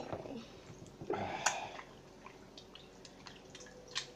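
Homemade glue-and-borax slime squelching and dripping as hands knead and squeeze it over a glass bowl, with small wet clicks throughout; a louder squish comes about a second in and a sharper click near the end.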